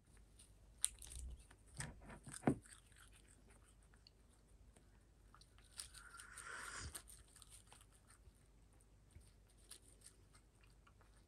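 A cat eating from a ceramic bowl: quiet chewing and crunching with several small sharp clicks, the loudest about two and a half seconds in, and a brief rustling swell a little past the middle.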